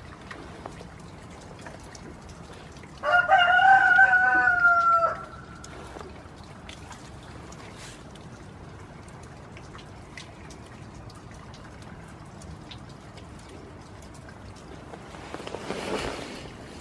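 A rooster crows once, a single pitched call of about two seconds, a few seconds in. Faint scattered ticks of rain run underneath, and a short rustle comes near the end.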